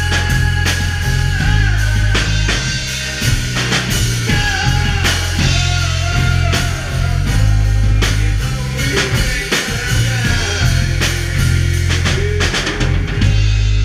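Live rock band playing: electric guitar, bass guitar and drum kit together, loud. Near the end the drumming stops and a low chord is held ringing.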